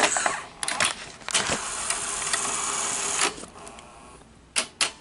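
Sony SL-100 Betamax deck's transport mechanism working with a cassette in it: a few clicks, about two seconds of steady whirring, then two sharp clicks near the end.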